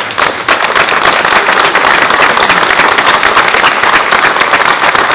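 Audience applauding: many people clapping together, building up quickly and then holding steady.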